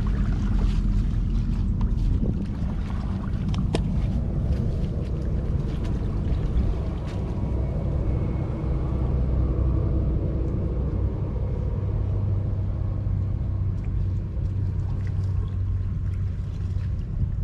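A motor running steadily with a low hum, with scattered small clicks and knocks.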